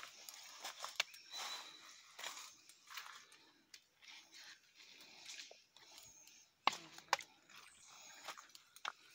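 Footsteps crunching irregularly through dry leaf litter and twigs, with a few louder snaps about two-thirds of the way through.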